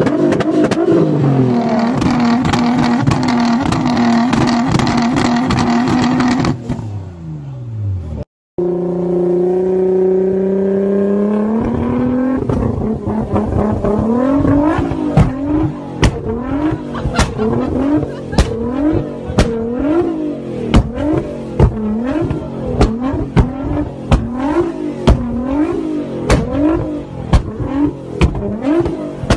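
Nissan GT-R R35 twin-turbo V6 with a loud aftermarket exhaust, first held at a steady high rev with rapid popping and crackling until the revs drop about seven seconds in. After a short break a second GT-R is revved in quick repeated blips, about one a second, with sharp exhaust bangs on each blip: backfire from a flame-spitting, anti-lag style tune.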